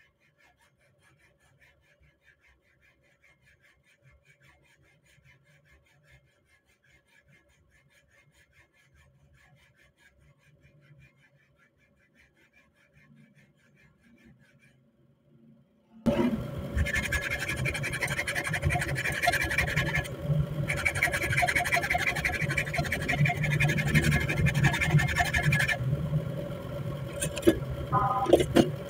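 Near silence at first. About halfway through, a hand file starts rasping hard on a steel rifle ejector clamped in a vise, cutting the groove that will hold its retaining pin. There is a short metallic clink near the end.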